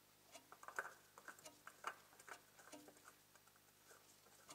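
Faint, irregular clicks and light scraping from a spin-on oil filter being turned by a gloved hand onto its threaded mount, busiest in the first half.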